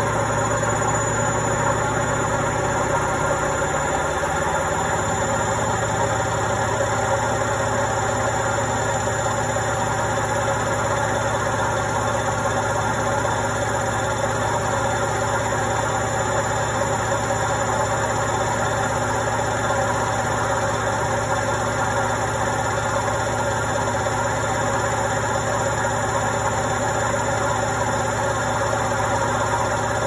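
Indesit front-loading washing machine running with a steady, unchanging hum and whir.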